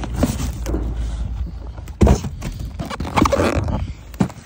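Cardboard boxes being handled: scraping and a series of knocks as a boxed firework cake is pulled from a shipping carton and set down, with one sharp knock about two seconds in.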